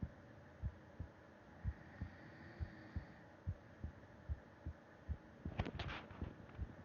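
A human heartbeat heard through the chest wall: steady paired lub-dub thumps over a faint hiss. About five and a half seconds in, a brief burst of crackling clicks rises over the beats.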